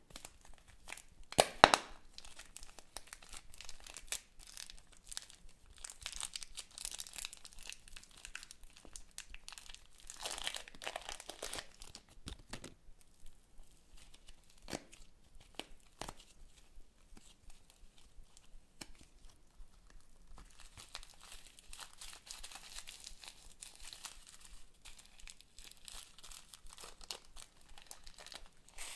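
Thin plastic packaging crinkling and tearing by hand, with a few sharp snaps about a second and a half in as a packet of pink clay is opened. Soft handling sounds follow as the clay is kneaded in a quieter middle stretch. Near the end a small zip-lock bag of beads crinkles as it is opened.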